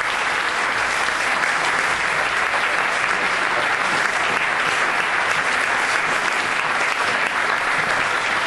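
Audience and the people on stage applauding together: steady, dense clapping with no break.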